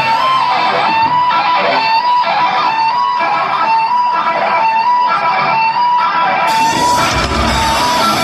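Live heavy-metal band playing from the crowd's position: an electric guitar picks a repeating riff of high single notes, and about six and a half seconds in the full band comes in with drums and heavy bass.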